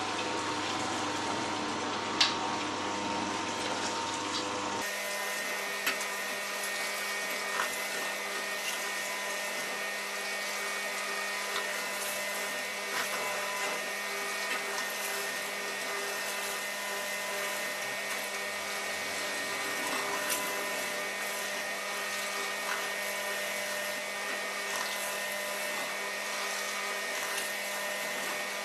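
Angel twin-gear stainless steel juicer pressing apples: a steady motor hum with scattered sharp cracks and clicks as apple pieces are pushed down the feed chute with the plunger. About five seconds in, the hum abruptly changes to a different set of tones.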